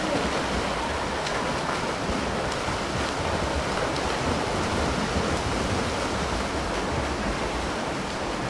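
Steady splashing and churning water from several swimmers swimming freestyle together in a pool.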